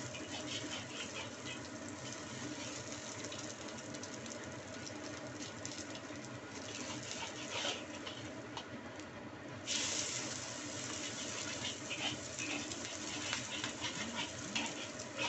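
An egg frying in hot oil in a wok: steady sizzling and crackling, with a metal spatula scraping against the wok now and then. The sizzle dips briefly about nine seconds in.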